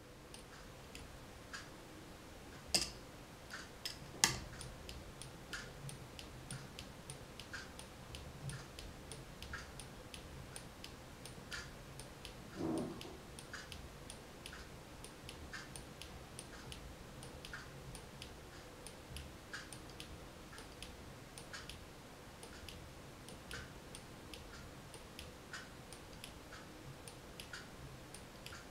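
Kinetic desk sculpture with swinging rings making light, steady ticking, roughly one to two clicks a second. There are two sharper clicks a few seconds in and a short low hum near the middle.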